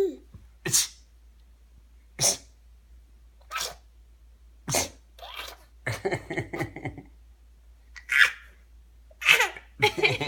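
A string of short fake sneezes, one roughly every second or so.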